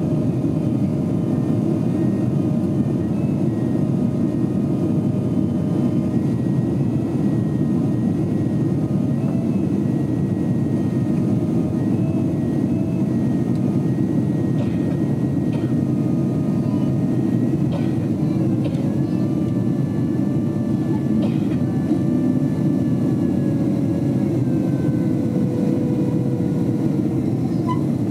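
Boeing 767 cabin noise during the climb after takeoff, heard from a window seat behind the wing: a steady roar of the jet engines and airflow, with faint whining tones drifting slowly in pitch above it.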